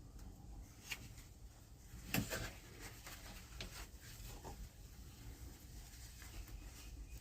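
Faint handling noises of hand tools and small metal parts: a few light clicks, with one louder clack and short rattle about two seconds in.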